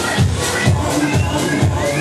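Electronic dance music playing loud over a club sound system, with a steady kick drum at about two beats a second.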